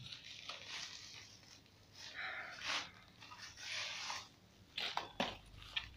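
Plastic parcel wrapping rustling and crinkling in several bursts as it is handled and pulled off a boxed tripod, with a few sharp clicks near the end.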